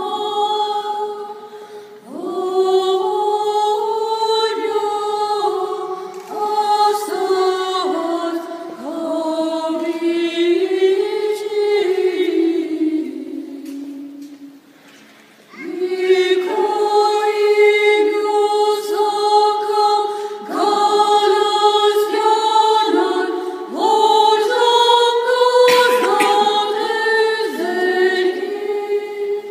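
Female and children's voices of a choir singing an Armenian sharakan hymn a cappella, one melodic line moving in phrases. About halfway through a long phrase falls and fades out, and after a brief pause the choir comes back in.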